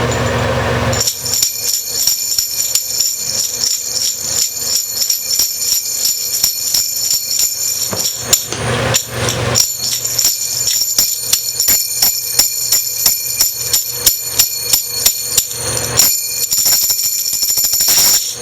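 Jingle bells shaken in a steady rhythm, about four shakes a second, with the bells ringing high and a short break about halfway through. A low steady hum sounds for the first second.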